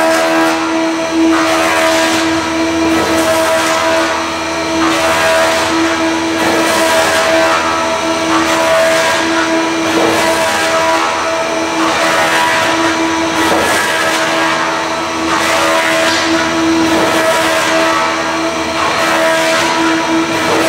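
Wood shaving machine running under load, its cutter turning wood into shavings: a steady machine hum under a loud, uneven rasping of cutting that swells and dips every second or two.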